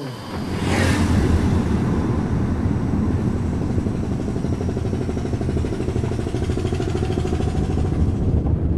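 Car driving along a road, heard from inside the cabin: a steady low rumble of engine and tyres, with a brief whoosh about a second in.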